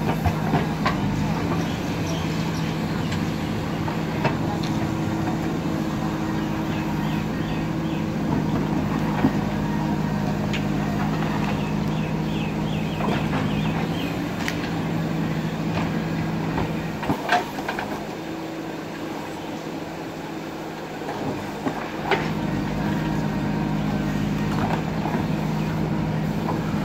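Diesel engine of a JCB backhoe digger running steadily under work, easing off for a few seconds about two-thirds of the way through, then picking up again. Sharp knocks and clanks come at irregular moments over it.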